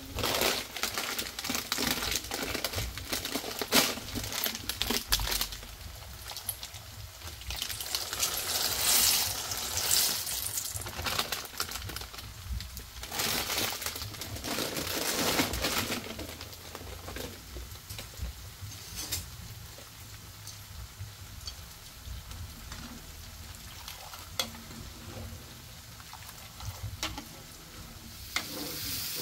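Food sizzling and frying in a pan on a gas stove, with frequent short clicks through it. The sizzle is louder in the first half and quieter from just past the middle.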